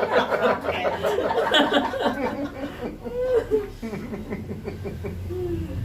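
People laughing and chuckling, densest in the first three seconds, then a few short, quieter voice sounds.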